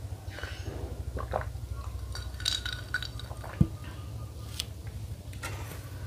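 Tableware clinks and knocks: a drinking glass and a spoon against a glass soup bowl as a drink is sipped and the spoon is picked up. There are scattered light clicks, with one sharper knock a little past halfway.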